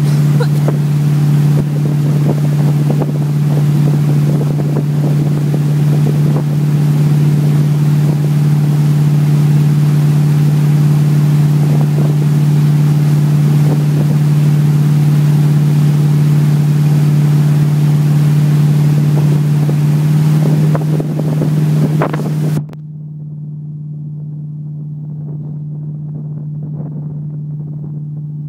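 Motorboat engine running steadily at towing speed, a constant low drone, under the rush of wind and churning wake water. The rushing noise cuts off suddenly about three-quarters of the way in, leaving only the engine's hum.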